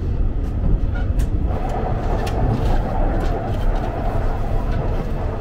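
Steady low rumble of a moving diesel railcar heard from inside the carriage, with a few light clicks over it.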